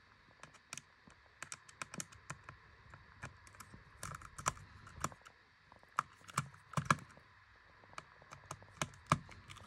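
Small hand screwdriver turning the screen-hinge screws of an Asus Vivobook X413F laptop: an irregular run of light metal clicks and ticks, louder in the middle and near the end, as the loose hinge screws are tightened.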